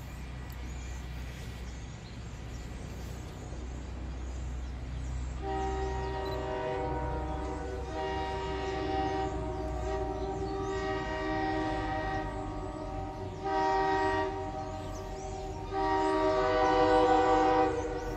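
Multi-note air horn of an approaching train, sounding two long blasts, a short one and a final long one, the standard grade-crossing signal, over a steady low rumble. The last blast is the loudest.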